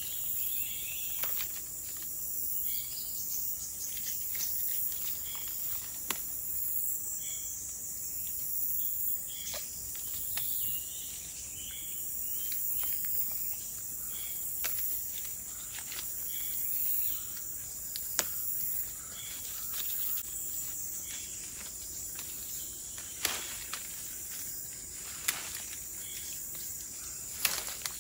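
A steady high-pitched chorus of forest insects, broken by scattered short snaps and rustles of young melinjo leaves being plucked by hand.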